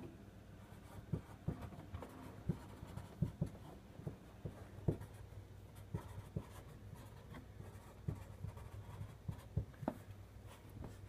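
Handwriting on sticky notes stuck to a door: irregular light taps and scratches of the pen, over a steady low hum.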